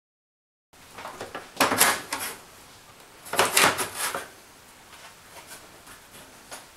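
Metal bottom cover of an HP 141T spectrum analyzer display section sliding stiffly back along the chassis: two loud scrapes of metal on metal about a second and a half apart, then a few lighter knocks as the cover comes free.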